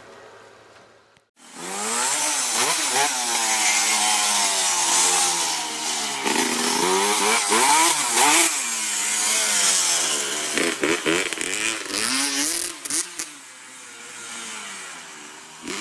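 Two-stroke dirt bike engine revving up and down repeatedly, its pitch rising and falling. It starts suddenly about a second and a half in and eases off a little near the end.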